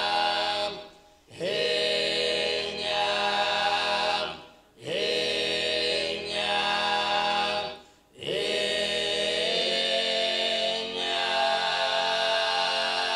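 Sardinian canto a tenore: four men's voices singing unaccompanied in close harmony, in the slow voche notte antica style. Held phrases are broken by three short pauses, and each new phrase starts with an upward slide.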